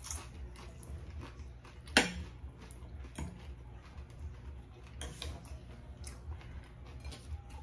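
A fork and fingers tapping and clinking against ceramic plates: a handful of light, separate clicks, the sharpest about two seconds in. A low steady hum runs underneath.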